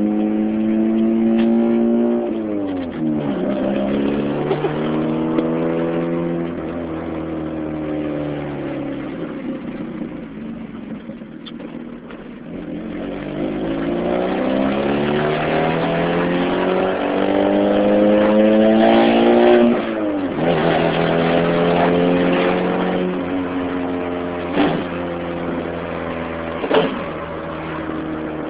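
Supercharged 2.0-litre four-cylinder of a Chevy Cobalt SS, heard from inside the cabin, made loud and raspy by an exhaust leak at the header/downpipe. The engine revs up under acceleration with its pitch climbing, then drops sharply at gear changes, once early and once past the middle. Two brief sharp cracks come near the end.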